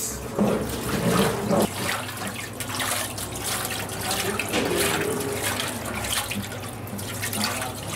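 Water running from a hose into the steel bowl of a spiral dough mixer.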